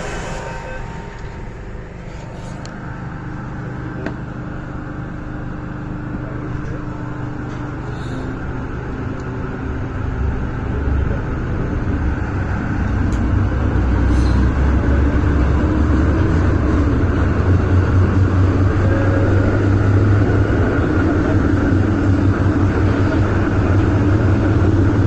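MTR Tsuen Wan line M-train electric multiple unit heard from inside its motor car as it pulls out of a station: the low running rumble of the motors and wheels grows steadily louder as the train picks up speed. A few short clicks sound along the way.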